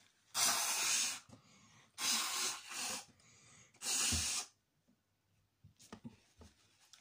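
A person blowing their nose hard into a tissue three times, each blast about a second long.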